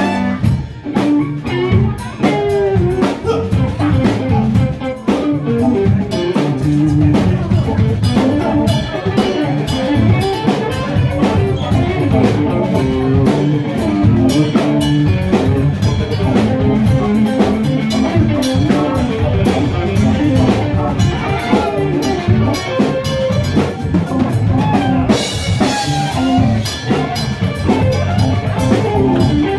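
A live cover band playing a dance number, with drum kit, electric guitar and bass guitar, loud and steady throughout.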